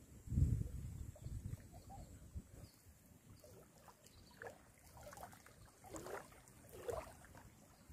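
Small river waves lapping and gurgling against a muddy bank in short irregular splashes. A brief low rumble, like wind on the microphone, comes about half a second in.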